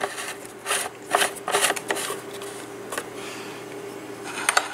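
Plastic fuel cap being screwed onto a leaf blower's plastic fuel tank: a handful of short, irregular clicks and scrapes over a faint steady hum.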